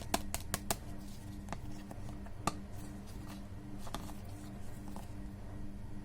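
Sharp clicks and taps of plastic candy packaging being handled: a quick run of about five in the first second, then a few single ones, over a low hum that pulses evenly on and off.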